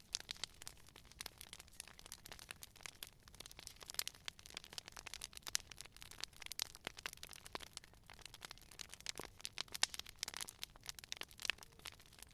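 Campfire wood fire crackling and popping: dense, irregular sharp snaps with no rhythm, a few louder pops among them.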